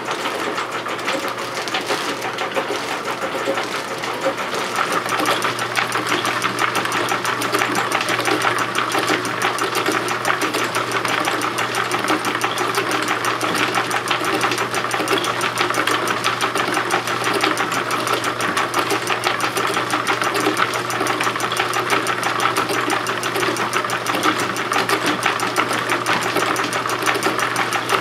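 Homemade fabric-dyeing machine running steadily: an old electric motor belt-driving wooden pulleys and plywood gears, with a rapid, even clatter over a low hum.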